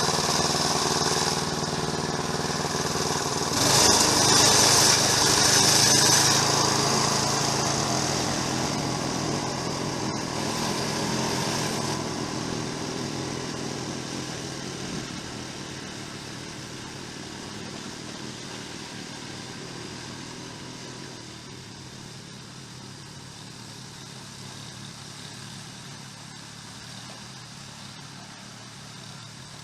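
Snowblower engine running steadily. It is loudest about four to six seconds in, then grows gradually fainter.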